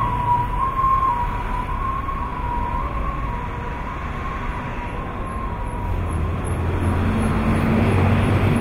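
Urban traffic noise with a distant siren wavering between two close pitches for the first few seconds, then a low engine drone that grows louder near the end.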